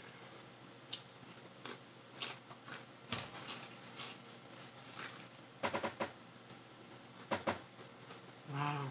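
Close-up chewing and lip-smacking while eating a chicken sub sandwich: scattered soft clicks and wet mouth noises, with a few brief voiced sounds from the eater in the second half.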